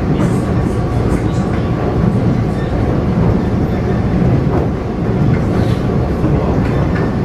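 Steady rumble of an EMU500 electric multiple unit running at speed, heard from inside the passenger car: wheels on rail and running gear with an even, unbroken noise.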